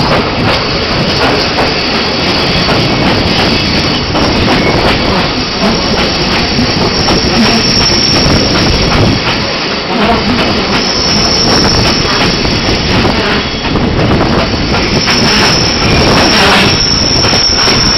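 Rhaetian Railway passenger train running on a curve, heard from beside the coaches: steady wheel-and-rail running noise, with a high wheel squeal that comes and goes and is strongest near the end.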